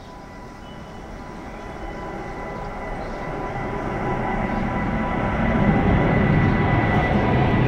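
Boeing 777 twin jet engines at takeoff power as the airliner climbs out, a steady rumble with a thin steady whine through it, growing louder as the plane approaches.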